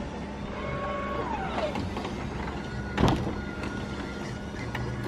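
Tesla Model X powered door opening: a motor whine that drops in pitch about a second and a half in, a sharp thump about three seconds in, then a steady higher whine.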